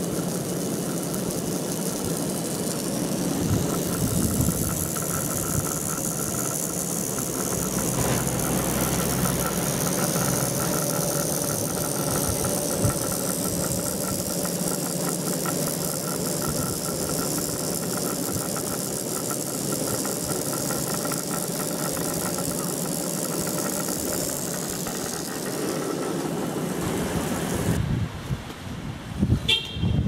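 Funicular haul rope and track-bed pulleys running just after the cable car has passed: a steady running noise with a steady high tone in it. About two seconds before the end it cuts away to a quieter sound with a few sharp clicks.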